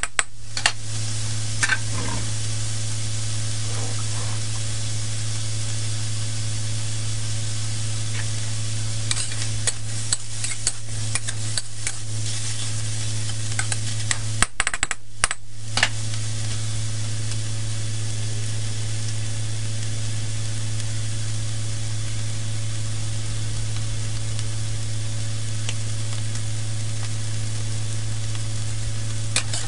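Diced duck meat and vegetables sizzling in a steel wok, with a metal spatula scraping and clacking against the wok in a few short bouts of stirring: near the start, in the middle and just before the end. A steady low hum runs underneath.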